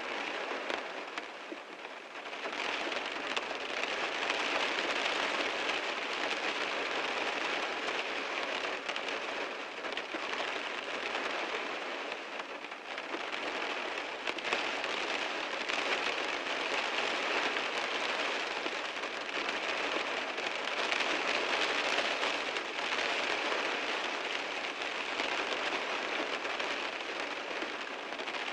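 Heavy rain drumming on a car, a dense steady patter that swells and eases slightly in intensity.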